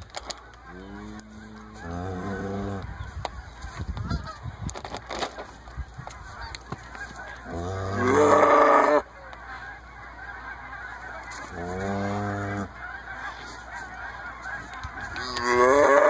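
Newborn calf bawling about five times while held with a stomach feeding tube in its mouth. The two loudest calls come about eight seconds in and near the end.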